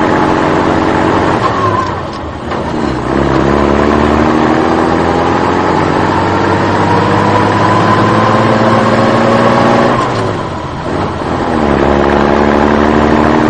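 A vehicle engine runs continuously. Its pitch drops about two seconds in, then climbs slowly for several seconds as it revs up, drops again near eleven seconds, and holds steady near the end.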